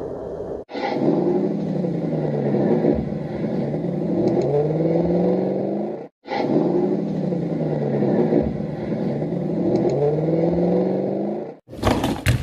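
A dubbed engine sound effect, revving up and down. The same clip of about five seconds plays twice back to back, and a short, loud, noisy burst comes near the end.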